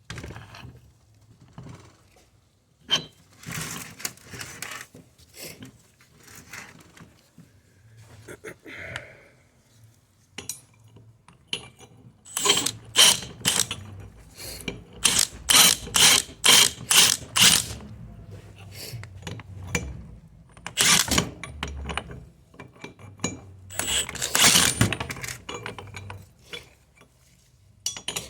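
Metal tools and parts clanking and clicking as a wheel hub is handled for pressing out a stuck bearing. The sounds are scattered sharp knocks, with runs of quick, evenly spaced metallic strokes, about two a second, in the middle and a louder cluster near the end.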